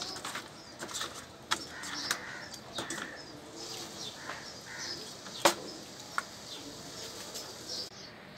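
Pieces of fried fish being shifted about in a steel bowl, giving scattered clicks and knocks against the metal, the sharpest about five and a half seconds in. Birds chirp in the background throughout.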